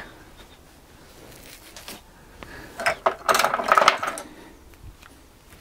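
Metal hand tools clinking and rattling against each other for about a second, about three seconds in, as they are sorted through by hand.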